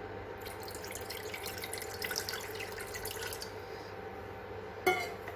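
Water being poured and splashing into a pot, stopping about three and a half seconds in. Near the end comes a single sharp clink with a metallic ring, over a faint steady hum.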